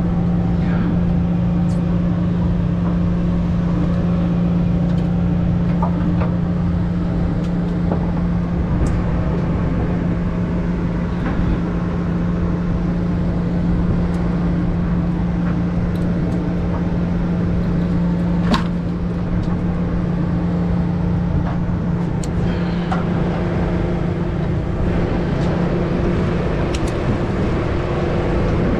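Party boat's engine running steadily, a constant low hum over a rumble, with a few faint clicks scattered through it.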